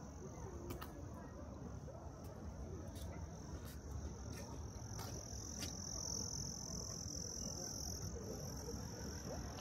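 Insects trilling in one steady high-pitched tone that swells about five seconds in and eases again near the end, over a low outdoor rumble.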